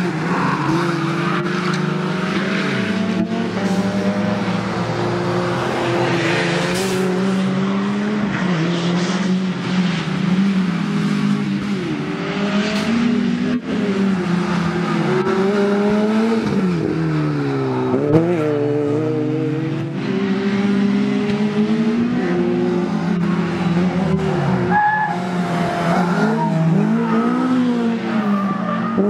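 Small four-cylinder race car engines revving hard, the pitch rising and falling through gear changes as cars brake and accelerate through corners, with a sharp drop and climb in revs about 18 seconds in. Brief tyre squeal comes in places.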